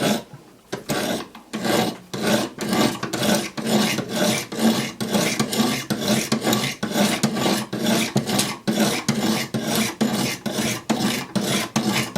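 50-grit diamond stones of a Wicked Edge guided sharpener stroked along a D2-steel Benchmade 710 blade: a steady run of light rasping strokes, about two to three a second, starting about a second in. The coarse grit is regrinding the edge bevel.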